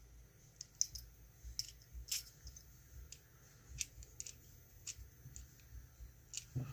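Faint, irregular small metallic clicks and scrapes of a tool working on an ISEO R6 dimple lock cylinder as it is dismantled.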